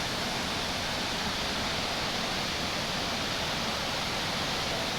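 Davis Falls waterfall rushing, a steady, even roar of falling water that plunges into a tunnel at its base.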